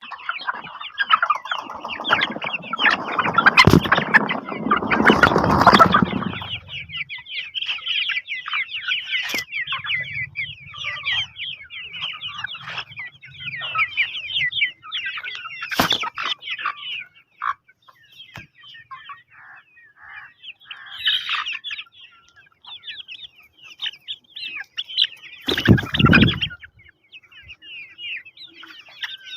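A flock of chickens clucking and calling in a dense, continuous chatter of short high calls. A louder rustling, flapping spell comes in the first few seconds, and brief loud sudden sounds come about midway and near the end.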